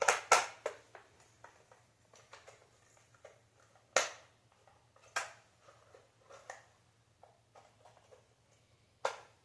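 Handling clicks and taps of plastic parts as the Xbox Series S's cooling fan is fitted back into the console. There are a few sharper snaps at the start, about four and five seconds in, and near the end, with lighter ticks between.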